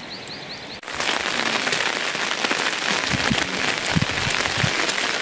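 Heavy rain falling close to the microphone, starting suddenly about a second in, with many individual drops striking nearby and a few low thuds. Before it, a quieter stretch with a bird's short repeated chirps.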